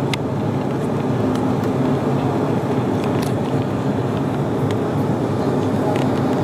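Steady roar of a Bombardier CRJ-900LR's rear-mounted GE CF34 turbofans and airflow, heard inside the passenger cabin during the climb after take-off, with a few faint clicks.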